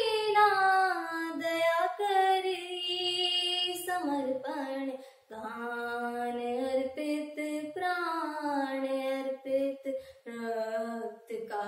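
A teenage girl singing a Hindi patriotic song solo and unaccompanied, in slow, drawn-out notes that glide from pitch to pitch, with short breaths about five and ten seconds in.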